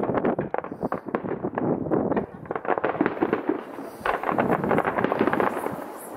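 Aerial fireworks bursting in a dense, rapid run of cracks and pops, thinning out for a moment midway and thickening again about four seconds in.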